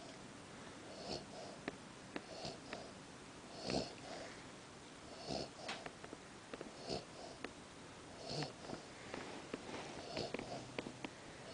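Cavalier King Charles spaniel snoring in its sleep, a noisy breath about every second and a half, with faint clicks in between.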